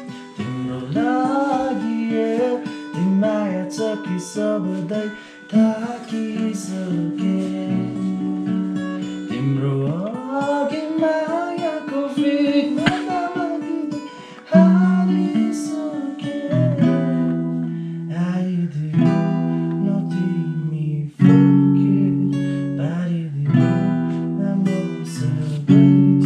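Background music led by strummed acoustic guitar, with a voice singing a melody over the first half.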